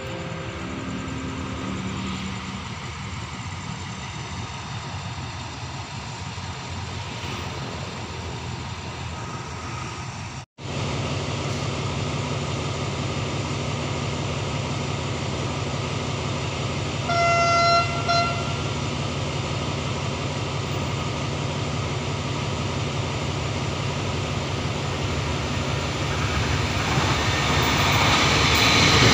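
Express train hauled by a QSY-class (CRRC Qishuyan) diesel-electric locomotive approaching through the station: a steady engine drone, one horn blast of about a second partway through, and the sound growing louder near the end as the train comes close.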